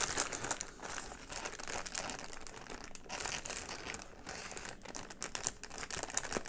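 Clear plastic bag crinkling and rustling as a cable is pushed back into it and the bag is folded over: an irregular run of crackles.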